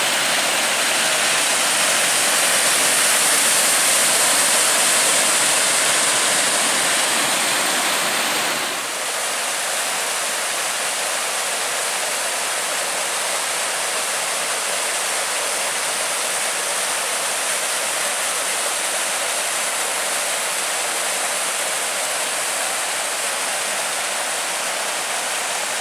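Small waterfall on Dunfield Creek, a steady rush of falling water. There is a brief dip about nine seconds in, after which it is slightly softer.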